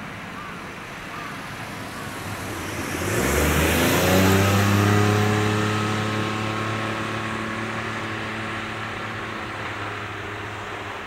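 A road vehicle, most likely a car, passes close by. Its engine and tyre note rises, drops in pitch as it goes past about three and a half seconds in, then fades slowly.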